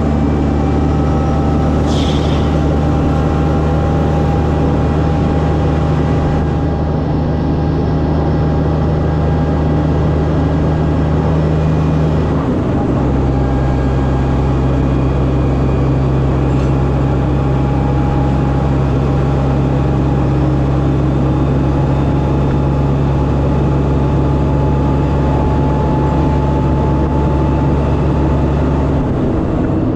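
Kenworth C509 heavy-haul truck's diesel engine running steadily under load. Its engine note steps down about twelve seconds in and steps back up near the end.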